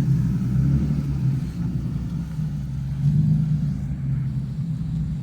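Stock exhaust of a 2017 Subaru WRX with its turbocharged flat-four engine running at a steady idle, a low, quiet hum.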